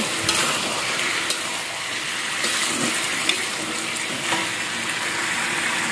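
Eggplant sizzling in a hot wok as a metal spatula stirs it, with a steady frying hiss and a few sharp scrapes and knocks of the spatula against the pan.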